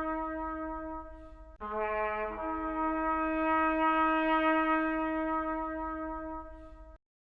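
Background music of long held brass notes. The tone dips and changes to a new note about one and a half seconds in, then holds again and cuts off abruptly about seven seconds in.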